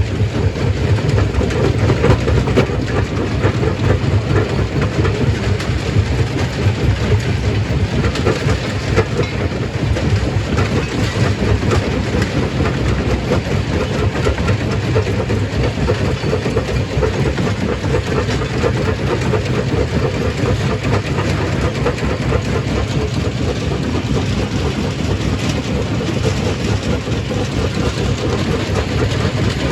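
Stone crushing machine running, loud and steady: a heavy mechanical rumble with a dense rattle of rock being broken.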